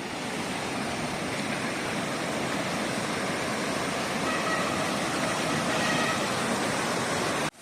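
Water of a small waterfall rushing steadily.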